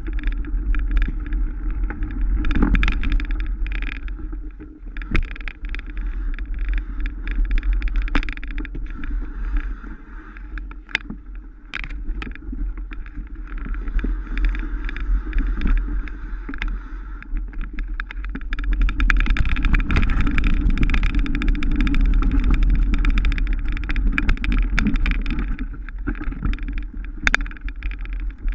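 Mountain bike riding offroad: a steady low rumble of wind and rolling tyres, with frequent sharp clicks and knocks as the bike rattles over bumps. It grows louder for several seconds in the second half.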